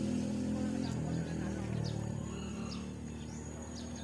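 A vehicle engine running and fading away over the first couple of seconds, leaving faint outdoor background with a few short, high chirps.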